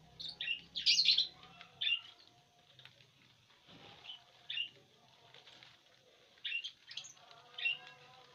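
Fischer's lovebirds giving short, high chirps: a quick loud cluster about a second in, then single calls and pairs spread through the rest.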